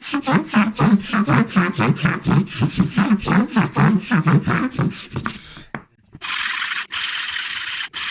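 Hand tool working wood in quick rhythmic strokes, about four or five a second, typical of hand sawing or rasping; the strokes stop about six seconds in. Then a steady hiss starts, broken by short gaps about once a second.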